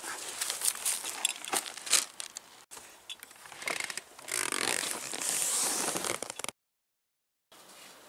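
Close handling of a fabric bag: rustling and scraping of the fabric and straps with a few sharp clicks and knocks, then a longer stretch of rustling. It cuts to a second of silence, then a faint steady background.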